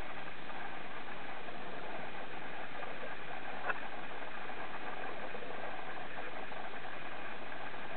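Steady underwater hiss picked up by a camera sealed in a waterproof case, with one sharp click a little under four seconds in.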